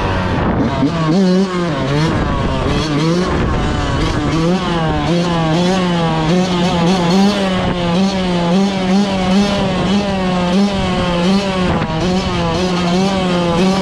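Yamaha YZ125 two-stroke dirt bike engine revving, its pitch rising and falling in quick, regular swells as the throttle is worked on and off.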